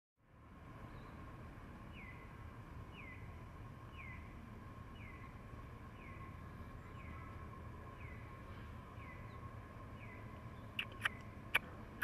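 A bird repeating a short, falling call about once a second over a low, steady background rumble and a faint steady tone. Three sharp clicks come near the end.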